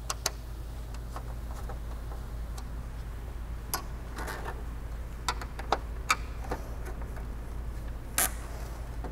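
Scattered light clicks and taps of a screwdriver and plastic parts as the screws on a Concept2 rowing machine's flywheel housing are tightened, over a steady low hum. A sharper click comes about eight seconds in.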